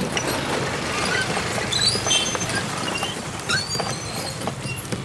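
Congested street traffic: a steady engine drone with many short, high-pitched beeps and squeaks scattered through it.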